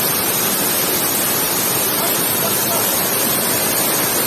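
Ngaloi waterfall's falling water heard close by: a loud, steady, unbroken rush of noise.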